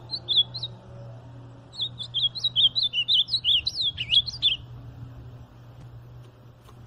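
Ultramarine grosbeak (azulão) singing: a short phrase of quick high warbled notes, then after about a second's pause a longer, faster run of sliding notes that ends around the middle.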